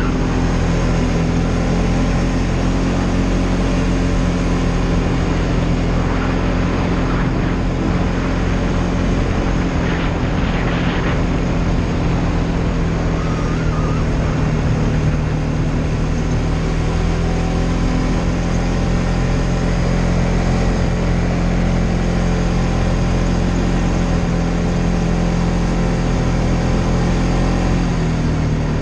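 Polaris Sportsman ATV engine running steadily while being ridden, its pitch dipping slightly near the end as it eases off.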